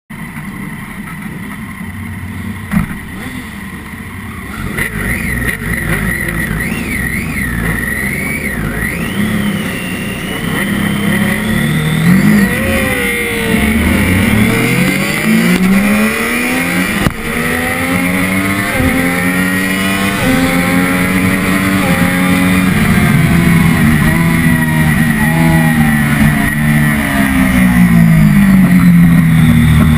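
Onboard sound of a Triumph Daytona 675R's inline-three engine at a race start: idling and blipping on the grid among other bikes, then about twelve seconds in it launches hard and accelerates up through the gears, the engine note climbing and dropping back at each upshift and growing louder toward the end. A single sharp click sounds about three seconds in.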